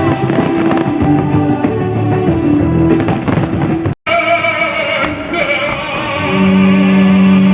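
Background music with held, pitched notes, rock-like with guitar. The sound cuts out completely for an instant about four seconds in.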